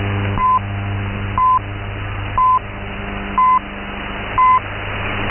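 Time-signal pips from the Voice of Turkey on 6.050 MHz shortwave, marking the top of the hour as the English transmission opens. Five short, high beeps come one a second over shortwave hiss and hum.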